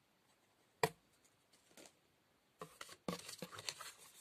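Paper and cardboard packaging handled inside a cardboard shipping box: a single sharp tap about a second in, then from halfway on an irregular run of small rustles and clicks as items are moved about.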